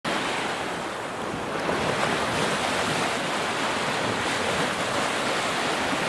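Small waves washing up on a sandy beach: a steady rush of surf.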